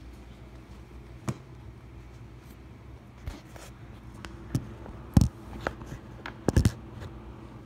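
A few scattered knocks and taps from things being handled close to the microphone. The loudest comes about five seconds in, followed by a quick cluster near the end, over a steady low hum.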